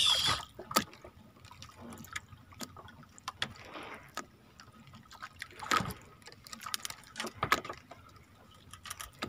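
Water trickling and splashing as a wet fishing handline is pulled in hand over hand, with scattered knocks and clicks, the loudest about six and seven and a half seconds in.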